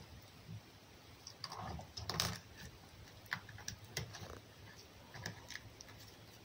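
Irregular light clicks and soft rustles at close range as a red fox eats egg from a hand-held plate.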